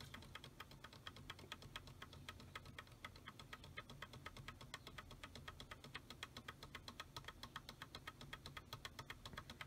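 Computer keyboard's F2 key tapped over and over in a fast, even rhythm, several taps a second, faint, during the PC's restart: the usual way to get into the BIOS setup at boot.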